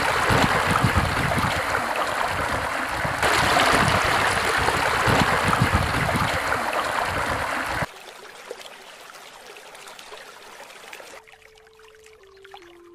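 Rushing, splashing river water churning loudly, which cuts off suddenly about eight seconds in to a much quieter lapping of water. Near the end a faint held musical note comes in, stepping down in pitch.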